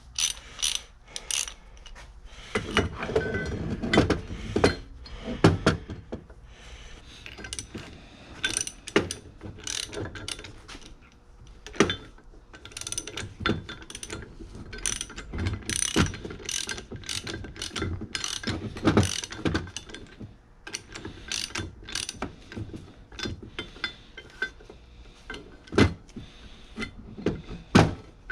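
Socket ratchet wrench clicking as a bolt is worked, in uneven runs of sharp metal clicks with clinks of tools in between.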